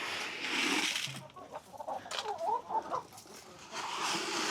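Chickens clucking in short, wavering calls, mixed with light rustling.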